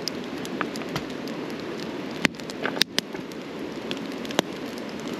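Wood campfire burning, a steady crackle with sharp pops of the burning logs, and a few louder snaps near the middle.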